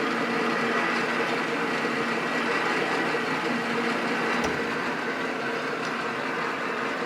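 Creworks 8x16 mini metal lathe running steadily, its freshly greased metal change gears turning with a steady whine. About four and a half seconds in, one tone drops out with a soft knock.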